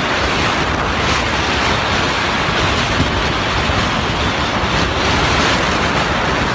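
Strong wind of an oncoming dust storm (haboob) blowing over a phone's microphone: a loud, steady rush of wind noise.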